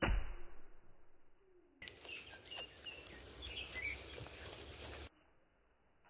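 A single slowed-down axe strike into a tree trunk: a deep thud that dies away over about a second. About two seconds in, a stretch of outdoor sound at normal speed begins, with birds chirping and a few light clicks, and it cuts off suddenly about five seconds in.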